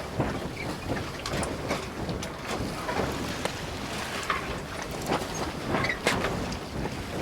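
Boat under way, a steady rush of wind on the microphone and water noise with irregular knocks and splashes throughout.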